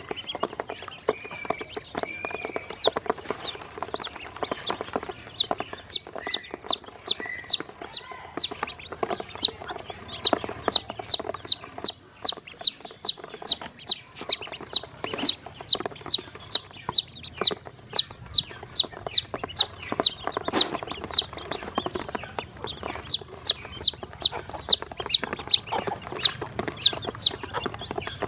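Chicks and ducklings peeping: a steady run of high, downward-sliding peeps, about three a second, with a few lower calls in the first seconds. Short clicks of beaks pecking feed off a plastic basin run underneath.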